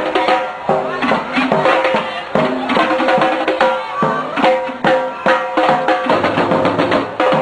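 Live street band playing: drums and other percussion beat a steady rhythm, with a small guitar and pitched notes over it.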